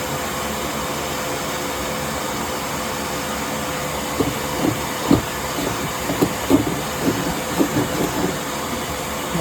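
Vacuum running with a steady hiss and a thin whine, and from about halfway through a run of irregular knocks and clicks as another 3-foot section of the vent-cleaning rod is handled and attached.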